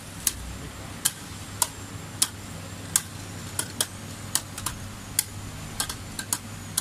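Two Beyblade Burst spinning tops clashing in a plastic stadium: sharp, irregular clicks about twice a second as they knock against each other while spinning.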